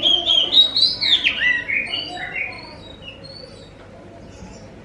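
Oriental magpie-robin (kacer) singing: a run of loud, sweeping whistled notes over the first two seconds or so, then softer, scattered notes.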